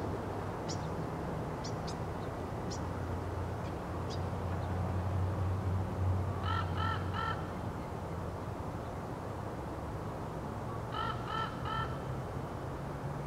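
Northern mockingbird singing: a phrase of about four quick repeated notes, then a pause, then another burst of four repeated notes near the end.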